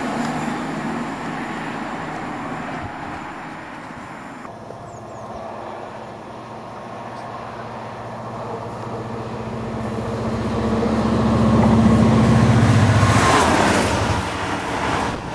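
A Voyager diesel unit rushes past at speed. Then a Class 67 diesel locomotive, with its two-stroke V12 engine, approaches and passes close by. Its low, steady engine note builds, is loudest about three-quarters of the way through, then falls away as it goes by.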